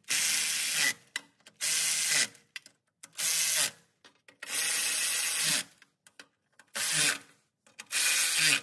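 Cordless electric ratchet spinning transmission pan bolts in through a neoprene gasket, in six short bursts of about a second each with pauses between.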